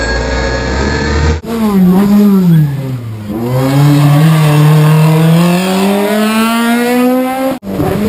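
Rally car engine at racing speed. It runs steadily at first, then after an abrupt cut it revs up and drops back, and then climbs in one long steady rise under hard acceleration through a single gear. The sound cuts off abruptly near the end.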